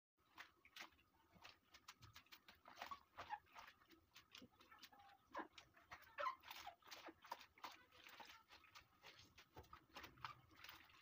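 Hands swishing and rubbing dried molokhia (jute mallow) leaves in a bowl of cold water: faint, irregular small splashes and sloshing.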